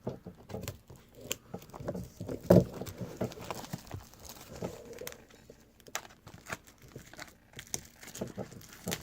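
Scissors snipping and cellophane shrink wrap crinkling and tearing as a sealed trading-card box is cut open, in irregular small clicks with a sharper snap about two and a half seconds in.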